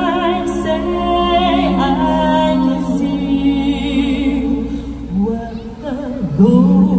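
A mixed vocal group singing a gospel song live through a PA in close harmony, holding long chords with vibrato. Near the end the voices drop away briefly, then come back in on a louder chord.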